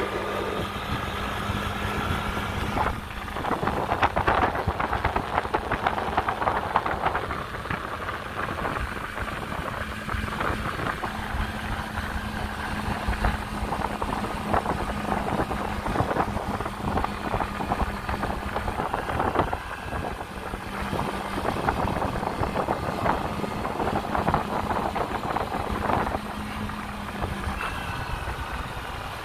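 Honda Dio AF68 scooter's air-cooled four-stroke single-cylinder engine running at a steady cruise, its note dropping briefly a few times, with wind rushing over the microphone in gusts.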